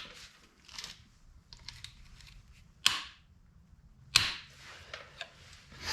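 Hand tools and metal parts clicking and knocking as a motorcycle's countershaft sprocket guard is unbolted: a few separate sharp clicks, the loudest about three and four seconds in.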